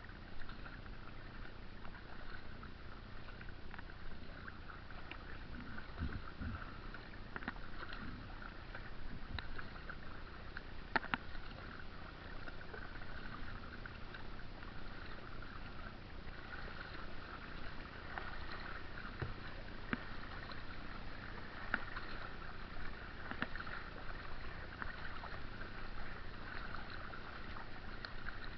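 Kayak on the move on a small brook: water splashing and running along the hull, with scattered sharp knocks, the loudest about a third of the way through.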